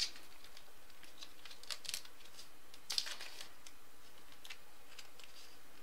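Baseball trading cards being handled and slid past one another: a few short, soft scrapes and ticks about a second apart.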